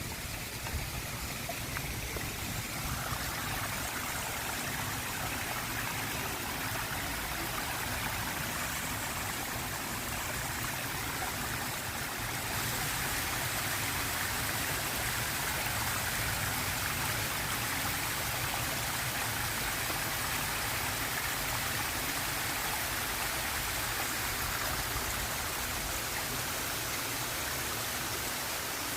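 Waterfall water rushing and splashing steadily, growing slightly louder about twelve seconds in.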